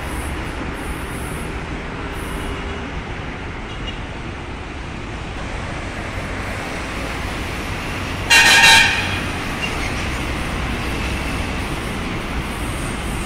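Horn of an approaching CPTM electric commuter train: one short, high blast about eight seconds in, over a steady rumble.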